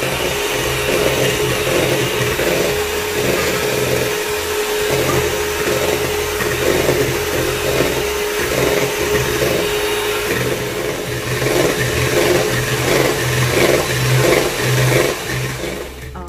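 Electric hand mixer running, its beaters whisking cookie batter and milk in a stainless steel bowl: a steady motor whine with a pulsing about twice a second.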